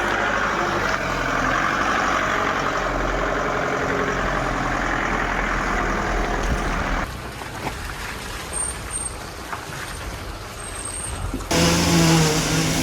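A 4x4 pickup running, with its engine hum under a steady noisy rush. About seven seconds in the sound drops to a quieter stretch with faint high chirps, then returns loud near the end.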